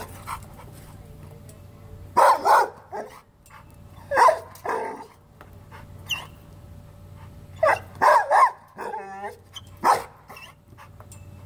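A pit bull barking in short groups of two or three, with pauses of a couple of seconds between them.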